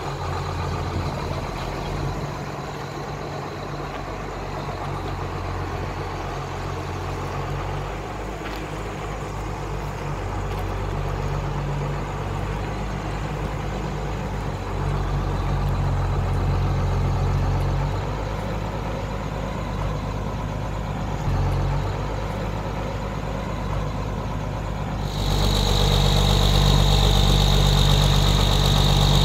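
Truck crane's engine idling steadily. Near the end it gets louder and a high steady whine joins it.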